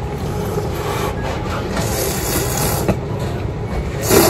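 A person slurping thin tonkotsu ramen noodles, a short loud slurp about four seconds in, over a steady low rumble of background noise.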